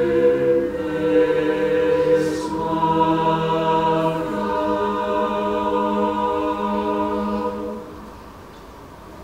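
Mixed choir singing a cappella, holding slow sustained chords that shift twice, then releasing the final chord about eight seconds in to end the piece.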